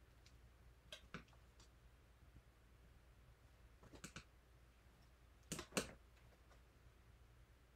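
Near-quiet room with a few light clicks and taps from handling a watercolor brush and palette: a pair about a second in, another around four seconds, and the loudest two close together a little before six seconds.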